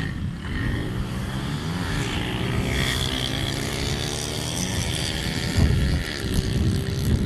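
Several radio-controlled model airplanes buzzing overhead, their propeller pitch rising and falling as they swoop past, over a low rumble.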